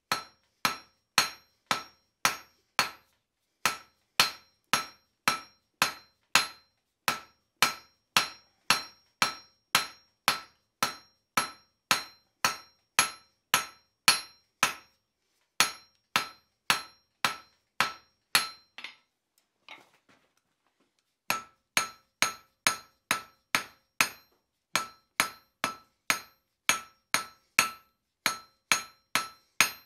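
Blacksmith's hand hammer striking a red-hot round steel bar on an anvil in a steady rhythm of about two to three blows a second, each blow ringing briefly, as the hook's shank is drawn out thinner. The blows stop for a couple of seconds about two-thirds of the way through, then start again.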